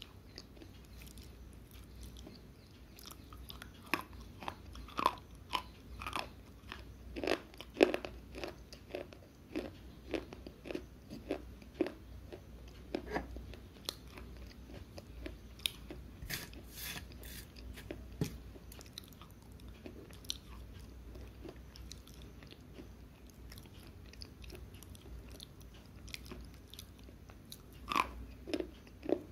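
Slate pencil being bitten and chewed right at a microphone: sharp, brittle crunches, thick and fast through the first half, sparse in the middle, with another quick cluster near the end.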